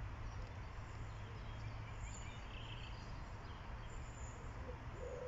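Faint outdoor background noise: a steady hiss over a low hum.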